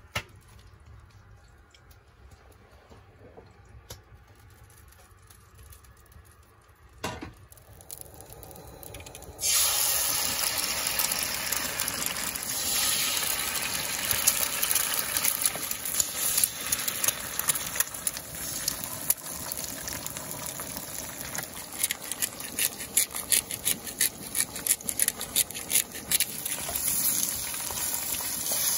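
Eggs frying in a hot cast iron skillet. It is quiet at first, with a click and a knock, then a loud sizzle starts suddenly about nine seconds in and carries on, crackling and popping more and more.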